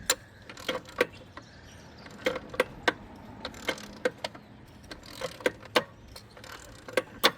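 Hand ratchet clicking in short runs of about three clicks a third of a second apart, working bolts loose during intake manifold removal.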